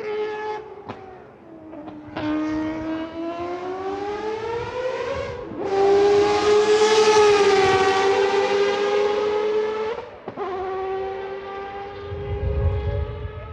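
Mazda 787B's four-rotor R26B rotary engine under acceleration, a high wailing note that climbs in pitch and drops back at each upshift, about a second in, around five and a half seconds in and around ten seconds in. It is loudest in the middle stretch. A short low rumble comes near the end.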